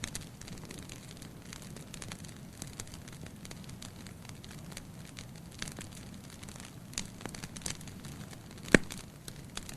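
Wood fire burning in a fireplace: a steady low rush of flames with irregular crackles of burning logs, and one much louder pop near the end.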